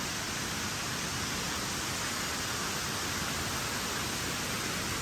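Steady rush of water falling and cascading: an even hiss without breaks.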